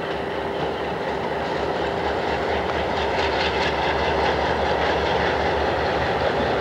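Freight train led by an ALCO C425 diesel locomotive running past, a steady rumble of engine and wheels on the rails, with faint wheel clicks over rail joints around the middle.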